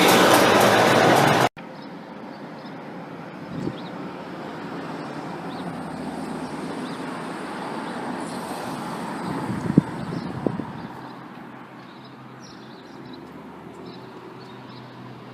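Road vehicle noise: a loud, steady rush of a nearby vehicle that cuts off suddenly after about a second and a half. A quieter steady traffic hum follows, with a couple of light knocks about ten seconds in.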